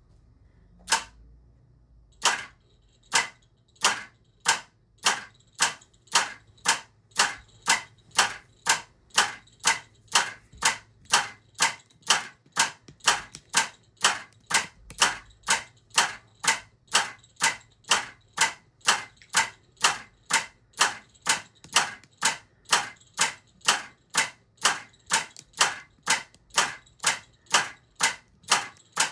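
Sharp mechanical clicks repeating at an even beat: a single click about a second in, then a steady run from about two seconds in that speeds up from a little over one to about two clicks a second.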